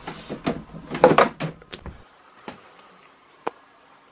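Framed art prints knocking and clattering against each other as they are flipped through in a box: a quick run of knocks over the first two seconds, then two single knocks about a second apart.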